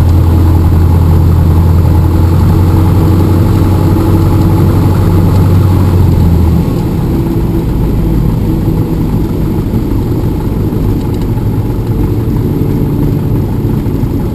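Cabin drone of a Cessna 172M's four-cylinder Lycoming O-320 engine and propeller, a steady low hum. About six and a half seconds in the hum steps down and gets quieter, then runs on at the lower setting.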